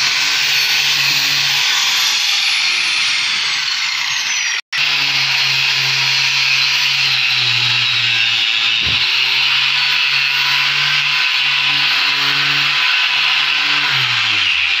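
Handheld electric disc sander running steadily, its round sanding pad rubbing over the wooden door frame. The sound cuts out completely for a split second about four and a half seconds in, then resumes.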